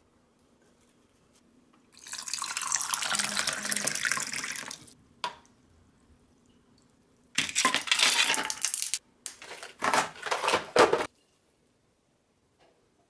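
Hot water poured into a glass mug of yuja (citron) tea preserve for about three seconds, then a single tap, followed by a spoon stirring in the glass in two spells.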